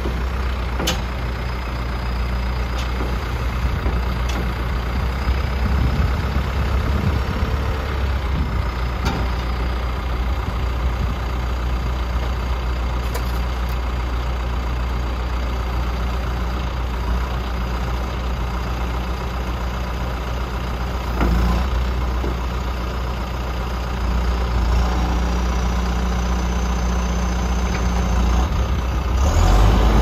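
John Deere 315SJ backhoe loader's diesel engine running steadily while its hydraulics work the loader arm and stabilizer leg, with a faint high whine over the engine. The engine note picks up near the end.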